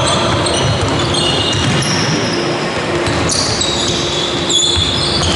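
A basketball being dribbled on a sports-hall court, with many short, high squeaks of players' basketball shoes on the floor.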